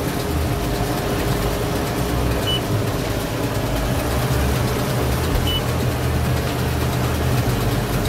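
Tractor engine running steadily under load, heard from inside the cab. A short high electronic beep sounds twice, about three seconds apart.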